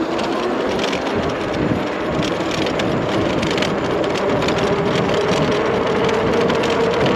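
Electric bike on the move under acceleration: its motor whines and slowly rises in pitch, over a steady rush of wind on the microphone.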